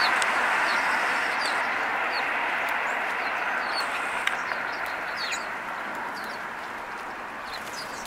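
House sparrows chirping in short, scattered high calls while they feed, over the steady hiss of road traffic that slowly fades away. A single sharp click comes about four seconds in.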